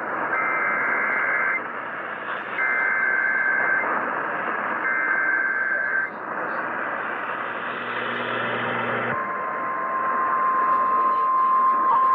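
Emergency Alert System alert received over a weather radio. Three bursts of the SAME header's two-pitch digital data tones, about a second each, are followed about nine seconds in by the long steady single-pitch warning alarm tone, all over radio hiss. It signals an incoming severe thunderstorm warning.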